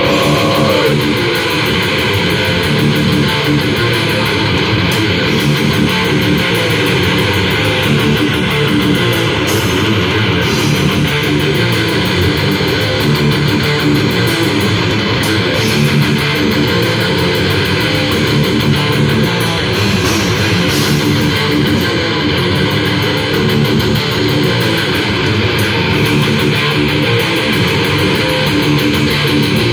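Live metal band playing an instrumental passage on electric guitars, bass guitar and drums, loud and steady throughout. A sung vocal line trails off about a second in.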